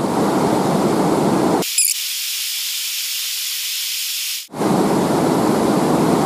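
Steady rushing of river water flowing over rocks. About a second and a half in, the low part of the sound drops out abruptly, leaving only a thin high hiss for nearly three seconds before the full rushing sound cuts back in.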